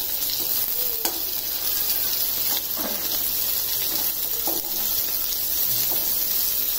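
Chopped onions sizzling steadily in hot oil in a metal kadai, freshly added so the frying is brisk, with a slotted spoon scraping and stirring them now and then.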